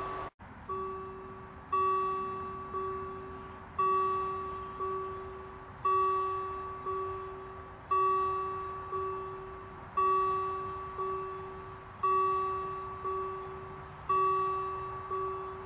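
Swiss railroad level-crossing warning bell ringing in a steady pattern: about one stroke a second, a louder stroke alternating with a softer one, each ringing out before the next. The sound drops out for an instant just after the start.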